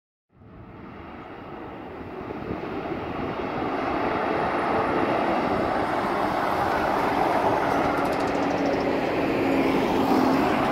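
Diesel side-loader garbage trucks driving past on a street, their engines and tyres making a steady rushing drone that rises over the first few seconds and then holds.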